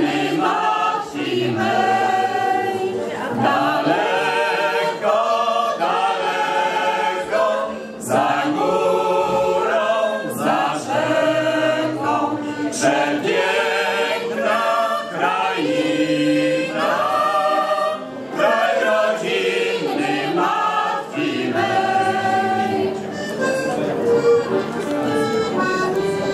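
Mixed choir of men's and women's voices singing a Polish folk song, accompanied by an accordion.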